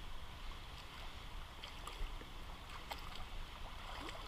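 River water running, with a low rumble underneath and a few faint clicks or knocks.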